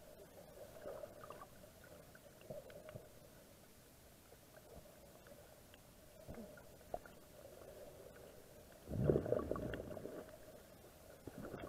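Water heard from a camera submerged underwater: faint, muffled gurgling and sloshing, with one louder low rumbling surge about nine seconds in that fades over a second or so.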